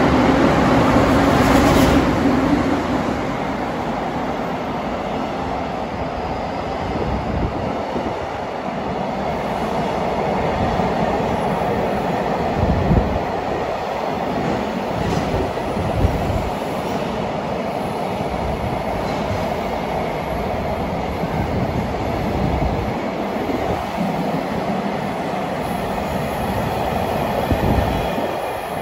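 EF510 electric freight locomotive running past, followed by a long train of container wagons rolling through with a steady rumble and clatter of wheels over the rail joints, broken by a few heavier thumps. It is loudest in the first couple of seconds as the locomotive goes by, and falls away near the end as the last wagons clear.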